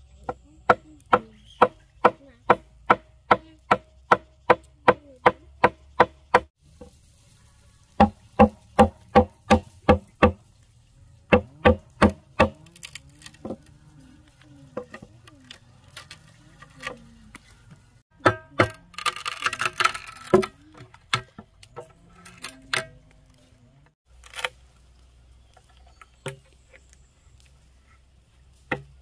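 Bamboo being chopped with a blade, in runs of even blows about three a second, each with a short hollow ring. After a few runs the blows become sparse and single, with a short rasping scrape about two-thirds of the way through.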